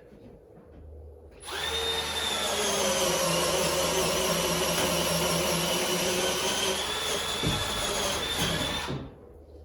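Power drill running steadily for about seven seconds, starting about a second and a half in and stopping near the end, with a steady high whine over a low hum.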